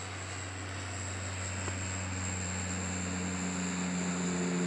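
Twin-engine turboprop airliner climbing out overhead just after takeoff: a steady low propeller drone that grows gradually louder.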